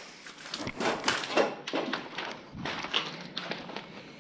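Footsteps crunching and scuffing over debris and litter on a floor, in irregular crunches several times a second, loudest about a second in.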